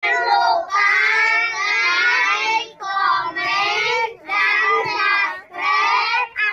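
A group of children singing together in unison, in several sustained phrases with short breaks between them.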